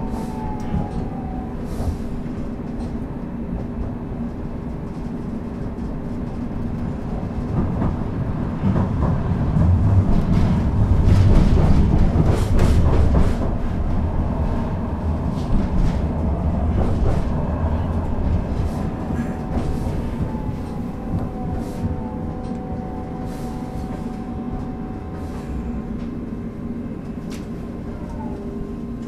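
Interior sound of a Duewag/Kiepe B80D light-rail car: a steady hum of its electrical equipment under a low rumble that swells louder about ten seconds in and eases off again, with faint falling whines in the second half.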